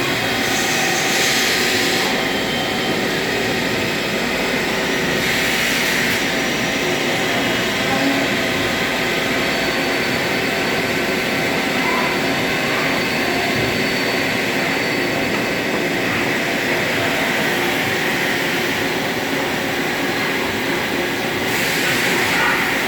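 CNC machine running steadily: a constant hum with several steady tones over a hiss, and short spells of louder hissing about a second in, around five seconds in and near the end.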